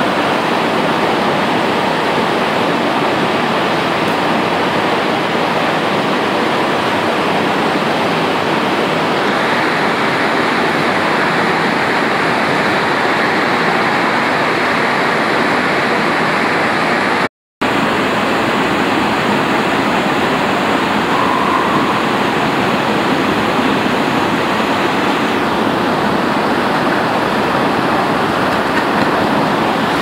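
Blast furnace cast house during tapping: a loud, steady rushing noise as hot metal and flame jet from the tap hole. The sound drops out for an instant about halfway through.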